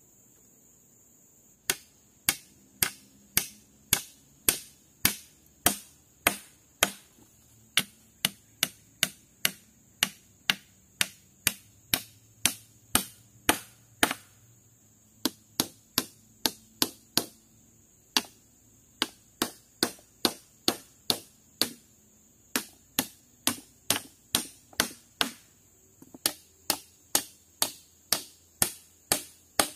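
Steady chopping with a blade, about two sharp strokes a second, with a few short pauses between runs of strokes.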